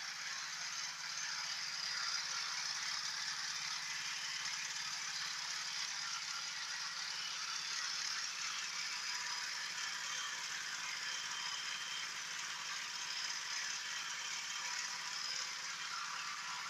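Multi-purpose electric food grinding machine running steadily, giving an even, hiss-like mechanical noise with no change in pace.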